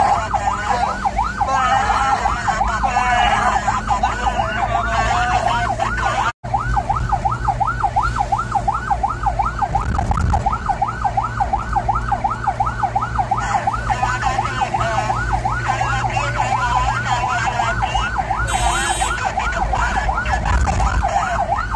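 Emergency-vehicle siren in fast yelp mode, sweeping up and down about three times a second, over a steady low engine hum heard from inside the moving vehicle. The sound cuts out for an instant about six seconds in.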